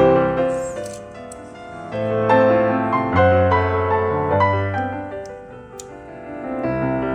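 Background piano music, notes played in a slow melody with a bass line.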